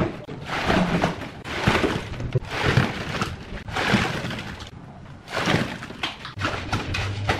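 Steel shovel scooping wet concrete from a metal wheelbarrow and tipping it into a wooden countertop form: a series of scrapes and wet dumps, about one a second.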